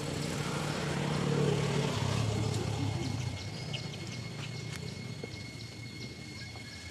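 A low engine rumble that swells about a second in, drops slightly in pitch and fades by about three seconds, like a vehicle passing, with faint scattered clicks.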